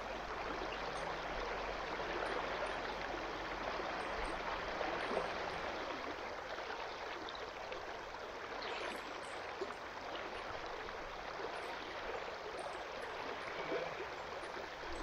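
River water flowing steadily over a shallow riffle and around a wading angler's legs: an even, continuous rush.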